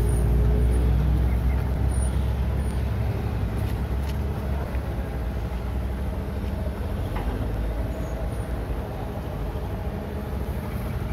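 Hitachi EX130 amphibious excavator's diesel engine running steadily under load as the machine turns on its pontoon tracks, a little louder in the first second or two.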